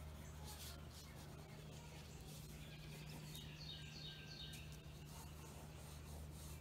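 Faint soft scratching of a white coloured pencil shading on paper, over a steady low hum. A small bird chirps a quick run of high notes about three seconds in.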